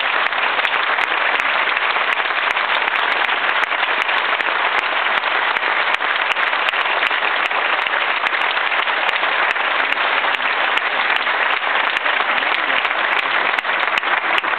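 Large audience applauding steadily, a dense even clatter of many hands clapping.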